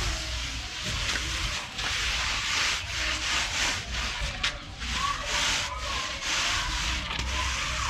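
A hand tool scraping and rubbing across freshly poured concrete in repeated strokes as the slab surface is smoothed, with a faint steady low hum underneath.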